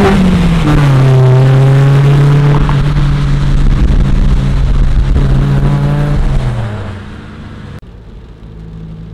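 Car engine revving up and dropping in pitch at a gear change just after the start, then running at steady revs with road noise, easing off about six to seven seconds in, after which it is much quieter.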